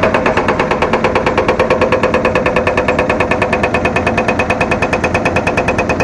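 Hydraulic breaker on a Caterpillar 320D excavator hammering into hard, rocky ground: a rapid, even run of blows, several a second, with no break.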